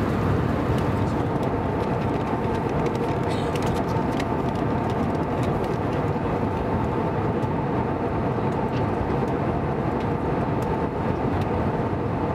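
Steady cabin noise of an Airbus A320 airliner in cruise: an even rush of airflow and engine hum, with a faint steady whine on top.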